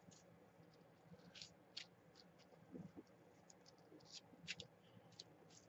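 Faint, irregular scratchy swishes of a damp sponge being rubbed over a paper transfer to wet it, low over a near-silent room.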